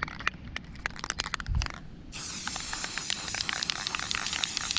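Aerosol spray-paint can spraying: a steady hiss that starts abruptly about two seconds in, after a run of quick light clicks and taps.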